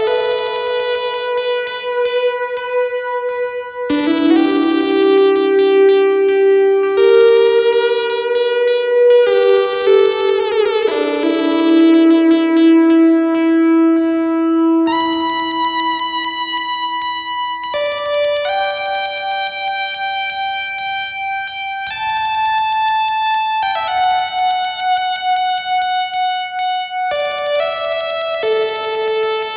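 Moog Grandmother analog synthesizer playing a slow run of held, overlapping notes, a new pitch every two to four seconds, each starting bright and mellowing as its upper overtones fade.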